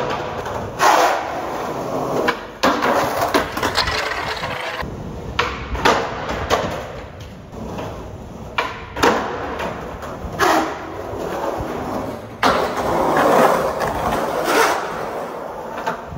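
Skateboard wheels rolling on pavement in several stretches, broken by a series of sharp clacks and slaps of the board hitting the ground, as on repeated tries and bails on a hill.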